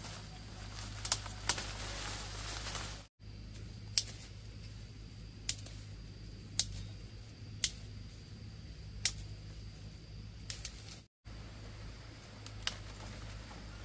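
About ten sharp, irregularly spaced taps over a low steady hum; the sound cuts out completely twice for a moment.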